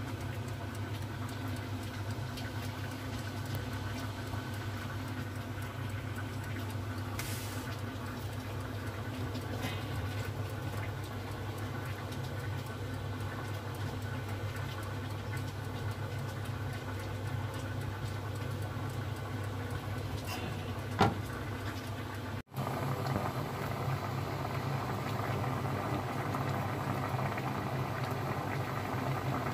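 Steady low mechanical hum with a faint patter like bubbling over it. A single sharp click about 21 seconds in, then a brief cut, after which the hum goes on slightly louder.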